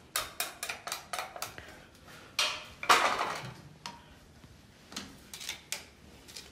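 Small hard models and figures clicking and clattering as they are picked up and set down by hand on a display shelf: a run of quick taps, a louder clatter about three seconds in, then a few more taps.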